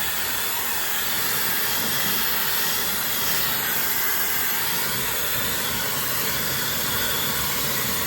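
HRYCF high-speed negative-ion hair dryer (160,000 RPM motor) running steadily, an even rush of blown air.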